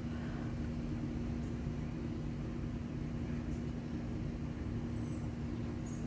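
Strong wind gusting through trees and buffeting the microphone as an unbroken low rumble, with a steady low hum underneath.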